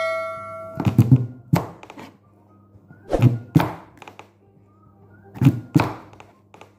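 Knife chopping through a large, hard kalabasa squash onto a plastic cutting board: a series of heavy thunks, about six strikes, mostly in pairs. A ringing chime fades out in the first second.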